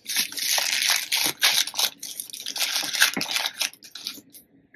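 Plastic wrapping crinkling and rustling in the hands as a small bottle is unwrapped, with many sharp crackles that stop a little before the end.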